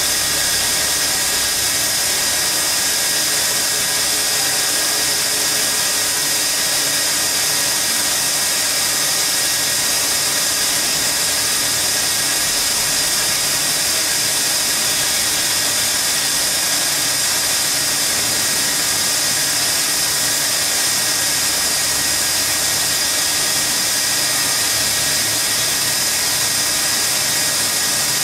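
Horizontal band saw running and cutting through a stack of metal sheets: a steady, loud hiss with a faint high whine, unchanging throughout.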